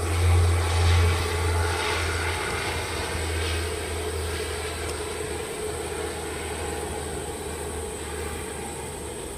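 Twin-turboprop military transport aircraft touching down and rolling out on the runway, its propellers giving a steady low drone that is strongest about the first two seconds and then slowly fades.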